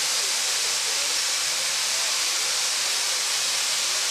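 Nickel Plate Road 765, a 2-8-4 Berkshire steam locomotive, standing with steam venting beside its running gear in a steady hiss.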